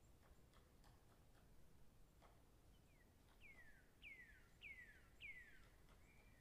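Faint: a bird calls a run of about five falling whistled notes, each louder than the last, in the second half. Under it, soft clicks and scrapes come from a knife scraping the singed skin of a mutton trotter.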